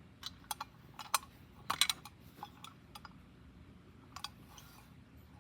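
Scattered light clicks and taps of a small diecast toy truck being handled, the loudest a little under two seconds in.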